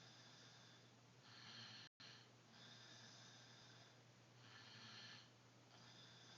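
A sleeping person snoring faintly, breath after breath swelling and fading every second or two, over a steady low hum. The sound cuts out for an instant about two seconds in.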